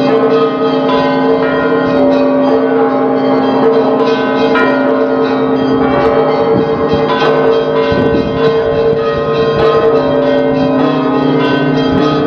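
Bells of the Alexander Nevsky Cathedral, a Bulgarian Orthodox cathedral, ringing a full peal: many bells struck in quick, overlapping strokes while their tones ring on and blend into a steady hum.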